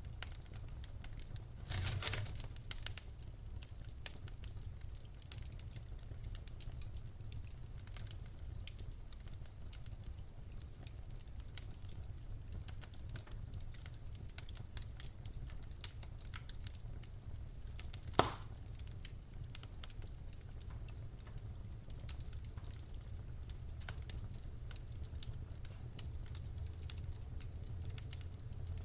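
Wood fire in a fireplace crackling, with many small irregular pops over a low steady rumble. A louder flurry of crackles comes about two seconds in, and one sharp loud pop a bit past the middle.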